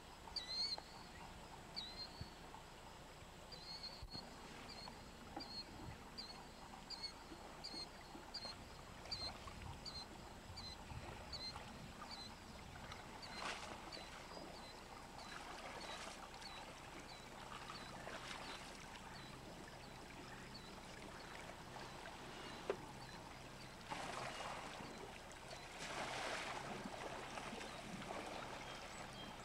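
Canoe paddle strokes in the water, one every two to three seconds in the second half. A bird chirps repeatedly, about twice a second, through the first half.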